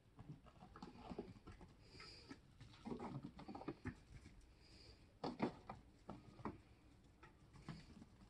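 Faint, scattered animal sounds from a goat and chicken yard: irregular short calls and patter, with a few brief high chirps.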